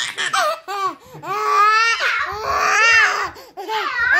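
Baby squealing and laughing in excitement: several high-pitched drawn-out squeals, the longest lasting over a second near the middle.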